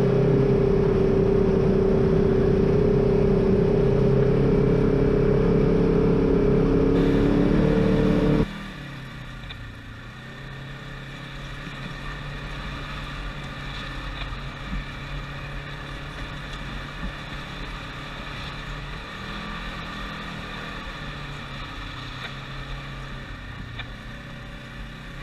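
Side-by-side UTV engine running steadily while driving on dirt trails. About eight seconds in, the sound cuts to a quieter, steady engine sound heard from inside the open cockpit.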